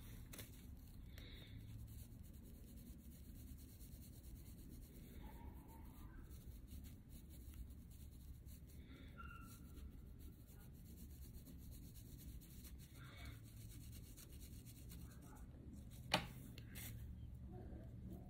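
Faint rubbing and scraping from hands working small craft materials, with one sharp click about 16 seconds in, over a low steady hum.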